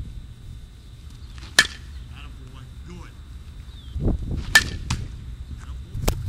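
A baseball bat hitting pitched balls in batting practice: two sharp cracks about three seconds apart, one and a half seconds in and again near four and a half seconds, over a low rumble of wind on the microphone.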